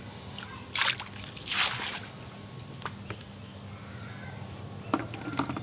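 Activated probiotic bacteria solution splashing onto the surface of an aerated biofloc fish pond during a follow-up application: a short splash just under a second in, then a longer one, over a steady low hum. A few light clicks follow later.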